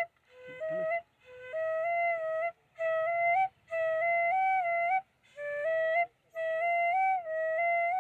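Background flute music: a solo flute playing a slow melody in short phrases, each about a second long, with brief pauses between them.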